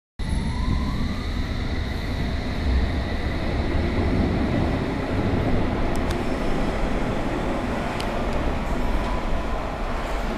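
London Underground S7 Stock electric train pulling out of the platform: a steady rumble of wheels on rail, with an electric traction whine that rises in pitch over the first couple of seconds. A couple of sharp clicks come around the middle.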